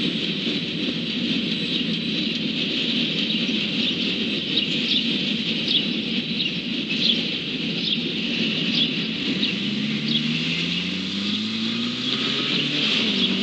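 Freight train's wheels on the rails as the last cars roll away: a steady rumble and hiss with short high squeals every so often. Near the end a motor vehicle's engine rises steadily in pitch as it speeds up.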